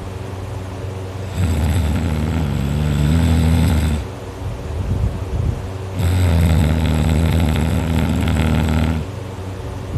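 A sleeping teenager snoring loudly: two long, low, droning snores about four and a half seconds apart, each lasting about two and a half seconds, with quieter rough breathing between them.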